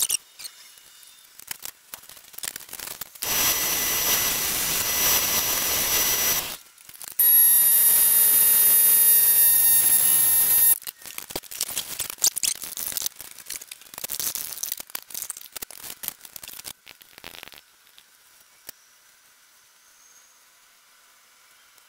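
Two long bursts of hissing, the second with a high whistle in it, then scattered clicks and knocks of handling a mallee burl bowl on a stopped lathe.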